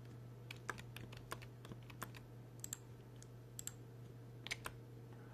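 Scattered, irregular clicks and taps of a computer keyboard and mouse, a dozen or so, quiet, over a low steady hum.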